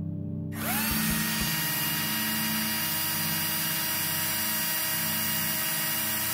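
Small electric power tool motor spinning up with a rising whine about half a second in, then running steadily at one speed before cutting off at the end.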